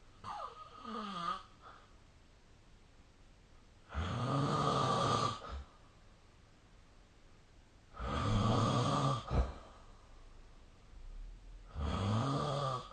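A sleeping person snoring, roughly one snore every four seconds. The first snore is lighter, with a falling pitch; the three after it are louder and rasping, and the last is cut short.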